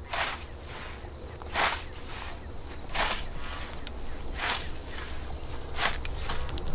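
Hand scythe mowing grass: a short swish with each stroke, five strokes about a second and a half apart.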